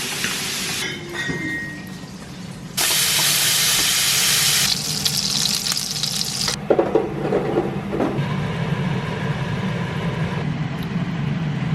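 Kitchen cooking noise: a loud, even hiss of the kind made by frying or running water, starting abruptly about three seconds in and cutting off about three and a half seconds later. A steady low hum carries on afterwards.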